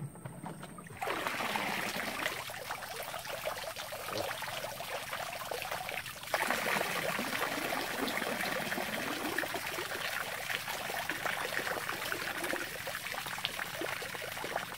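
Water pouring and splashing out of a 20-litre plastic water-jug fish trap into a shallow creek as the trap is held up to drain. It starts about a second in and gets louder about six seconds in.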